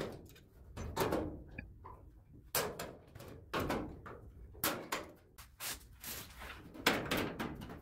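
Manual hand-squeezed hole punch snapping through the sheet-steel flange of a car quarter panel, punching plug-weld holes: a series of sharp clicks, about one a second.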